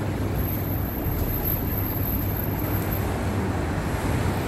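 Steady rumble of road traffic, with a thin high-pitched whine for about two and a half seconds early in the sound.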